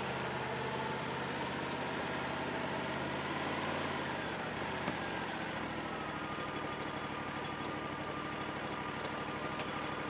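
Wood-Mizer LT40 portable sawmill's engine running steadily, its note dropping lower about halfway through. A single click comes near the middle.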